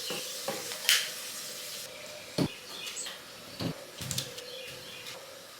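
A few light knocks and clicks, spread out, over a steady low hiss: household things being handled.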